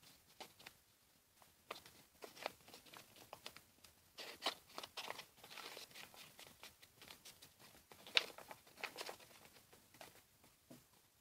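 A sheet of paper being folded and creased by hand: faint, scattered crinkles and crackles, with the loudest crackle about eight seconds in.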